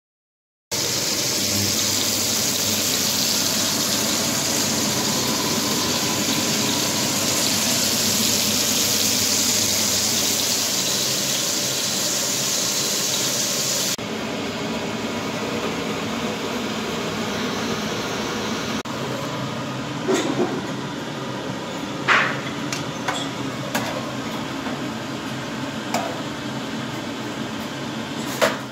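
Steady rushing kitchen noise, whose hiss drops abruptly about halfway through. In the second half, about six sharp clinks of metal tongs against the pan and plate stand out over it.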